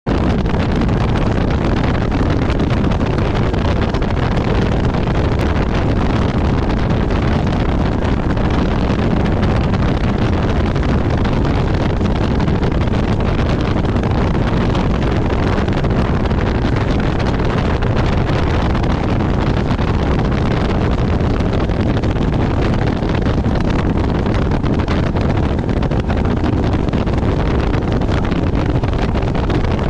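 Nitro Z19 bass boat running across the lake: a steady, loud rush of wind buffeting the microphone over the outboard motor and the hull on the water.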